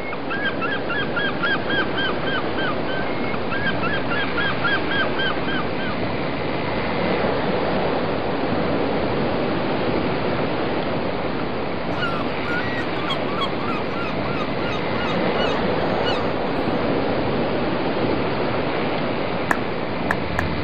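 Steady rush of wind and water around a boat moving at sea. Early on come two quick runs of short, repeated honking calls, about four a second, with fainter ones in the middle, and a few sharp clicks near the end.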